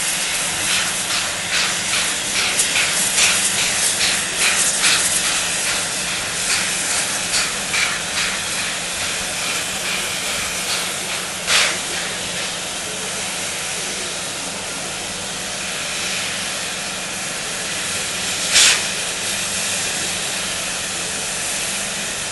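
SY class 2-8-2 steam locomotive hissing steam steadily, with a run of short puffs over the first eight seconds or so. Two louder, sharp blasts of steam stand out, about twelve and nineteen seconds in.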